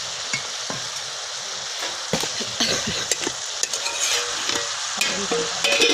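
Cauliflower and cabbage frying in oil in an iron kadai, sizzling steadily. Several sharp metallic clinks come from the steel plate lid and a ladle against the pan.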